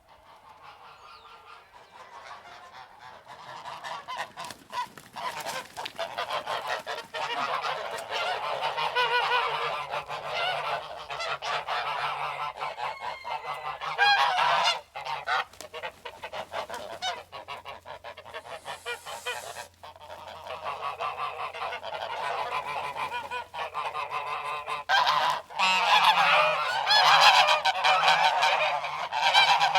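A flock of geese honking, many calls overlapping in a dense, continuous chorus that fades in over the first few seconds.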